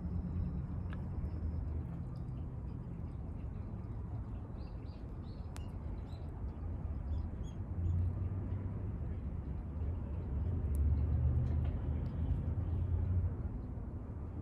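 Outdoor ambience dominated by a low, uneven rumble of wind on the microphone, swelling twice, with a few faint bird chirps and light clicks.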